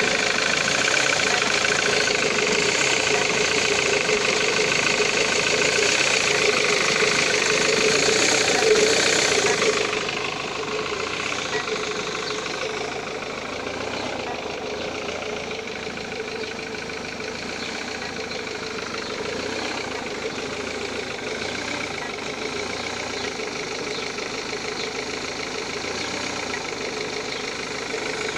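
Ford Mondeo Mk3 TDCi common-rail turbodiesel engine running with a strange noise, which the owner links to no power below 2000 rpm and black smoke. It is louder for the first ten seconds or so, then settles a little quieter and steady.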